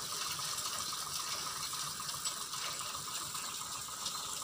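Crushed stone sliding and pouring off the raised bed of a Hino 10-wheeler dump truck, with a rapid, even mechanical ticking alongside it.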